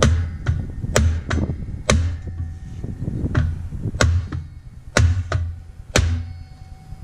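Hammer strikes knocking a Toyota Land Cruiser FJ60's rear brake backing plate and drum-brake assembly loose from the axle housing. There are about ten sharp metal blows at an uneven pace, each with a low thump, spacing out toward the end.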